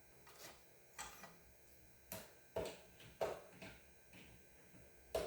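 Light clicks and knocks, about eight of them at irregular spacing, from handling the Wicked Edge sharpener's diamond stone paddles and leather strops while swapping them on the guide rods.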